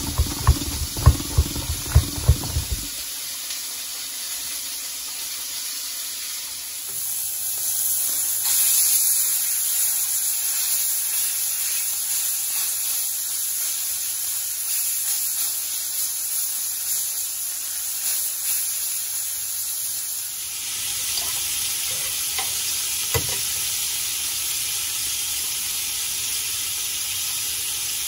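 A few seconds of rhythmic strokes of garlic on a metal box grater, knocking against a wooden cutting board. Then a steady sizzle of steak searing in a hot frying pan. About twenty seconds in, the sizzle changes to mushrooms frying, with a single knock shortly after.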